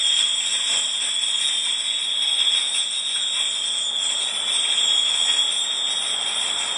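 A steady, loud high-pitched hiss.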